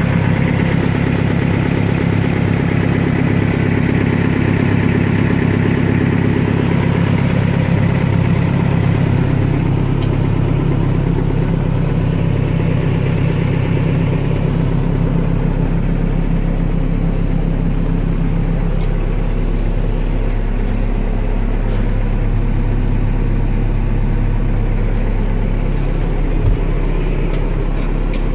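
Diesel engine of a Cat 430D backhoe loader running steadily. Its tone shifts about nine seconds in and again a little past halfway.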